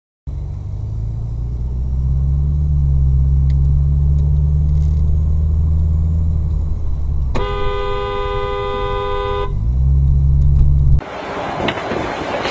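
A car engine hums low and steady inside the cabin. Midway a car horn blows once, a steady blare held for about two seconds. Near the end the sound cuts suddenly to loud rushing road and wind noise as a semi-trailer truck rolls alongside.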